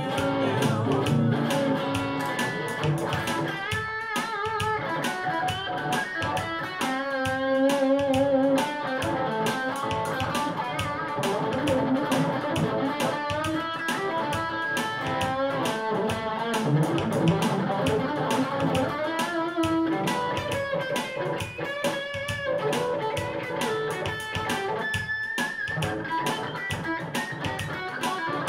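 Electric guitar playing an instrumental passage of a gospel shuffle over a steady beat.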